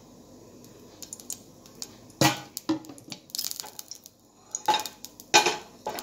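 Kitchen utensils clinking and knocking against a metal pan as cooking oil is added: a scattering of sharp clinks, the loudest a little over two seconds in and again about five and a half seconds in.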